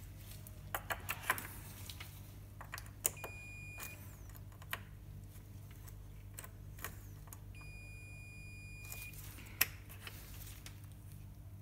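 Digital multimeter's continuity buzzer beeping twice, a short beep about three seconds in and a longer one of over a second later, between small clicks of the test probes against the speaker connector's pins. The beep marks continuity on the 2+/2− high-frequency pair, while the low-frequency line tests open. A faint low hum runs underneath.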